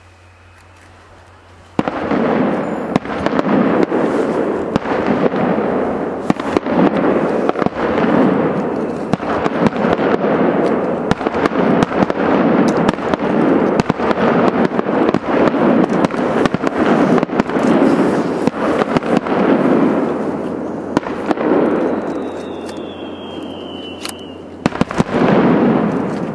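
Aerial fireworks display: after a quiet start, a dense, nearly unbroken run of shell bursts, booms and crackling begins about two seconds in. A short falling whistle comes near the end, and a fresh loud burst follows just before it ends.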